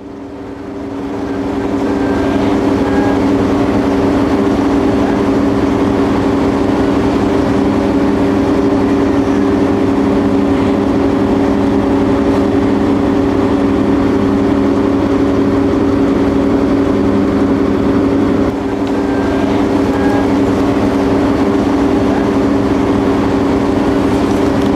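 Diesel-hydraulic locomotive of the DR V100 type idling, a steady engine hum with a constant drone that fades in over the first couple of seconds.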